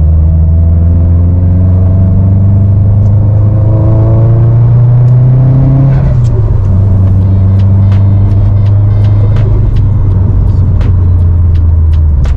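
Subaru WRX STI's turbocharged flat-four engine pulling under acceleration, its pitch rising for about six seconds and then falling away. A beat of music with regular ticks comes in over the second half.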